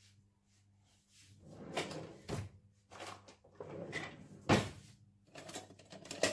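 A kitchen drawer pulled open and rummaged through: a run of knocks and rattles from its contents, with one sharp knock about four and a half seconds in.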